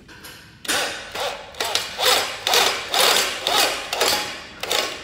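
Electric drill driving a screw into a metal shelf bracket, run in short pulses of the trigger about twice a second, its motor pitch rising and falling with each pulse.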